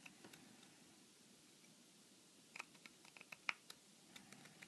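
Faint metallic clicks and ticks from a 26 TPI quarter BSF tap being turned by hand in the threaded bore of an aluminium workpiece, chasing out damaged threads. The clicks are scattered and small, with a cluster past the middle, over otherwise near silence.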